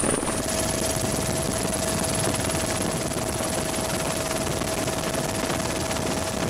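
Helicopter in flight: a steady rush of rotor and engine noise. About half a second in, a steady high whine and a lower steady tone join it.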